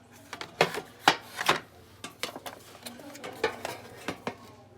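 A series of irregular sharp clicks and knocks, the loudest about a second in.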